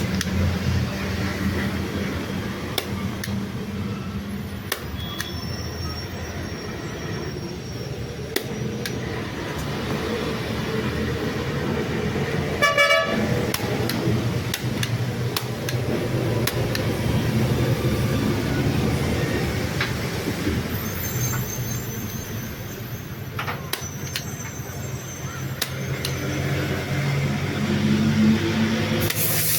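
A motor vehicle running steadily, with a hum that holds its pitch, and scattered clicks and knocks from work on it; a short rattle comes about halfway through.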